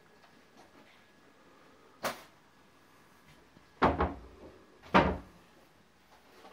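Window casement being handled, knocking against its frame in three sharp clunks about two, four and five seconds in; the middle one is a quick double knock.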